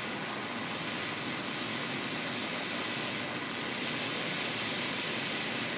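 Handheld butane torch burning with a steady hiss, its blue flame heating the end of a steel threaded rod.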